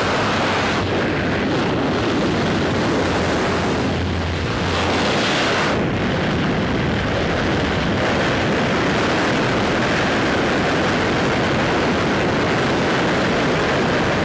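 Single-engine propeller plane in flight with its door open: a loud, steady rush of air mixed with engine and propeller noise.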